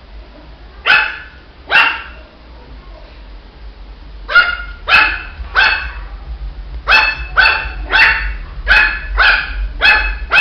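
Shih tzu puppy barking in short, high-pitched yaps: two about a second in, three more around the middle, then a quicker run of about six near the end.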